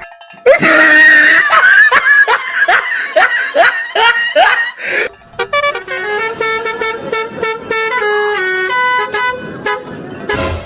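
Multi-tone 'telolet' bus air horn playing a stepped tune of held notes through the second half, after a loud run of quick repeated swooping sounds, about three a second, in the first few seconds.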